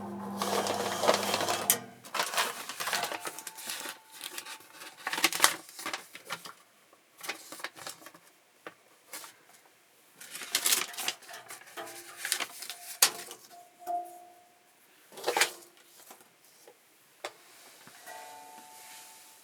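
Irregular clicks, clacks and rattles of hard parts of an electric paper creasing machine and its accessories being handled and fitted, in uneven clusters, with a short steady hum at the start.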